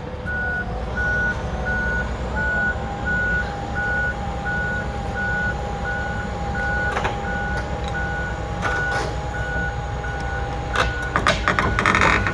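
Backup alarm on a heavy excavator beeping at an even pace, a bit under two beeps a second, over its steadily running diesel engine as it travels off a lowboy trailer. A few sharp metal clanks come near the end.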